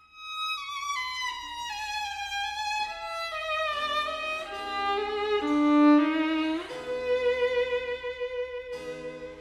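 Background music: a violin melody stepping down note by note, then settling into longer held notes.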